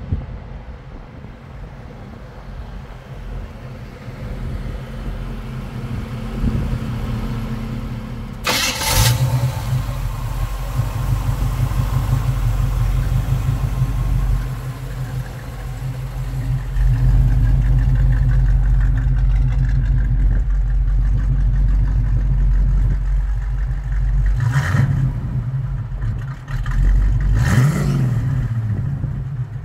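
1979 Chevrolet Malibu's engine. The car runs quietly in the distance at first, then the engine starts with a sudden burst about eight seconds in and idles steadily and louder. It is revved briefly twice near the end.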